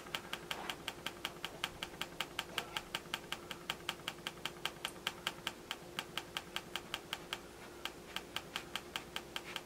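Rapid, even clicking of a small device button, about five clicks a second with a brief pause near the end, as the trail camera's pictures are stepped through one after another.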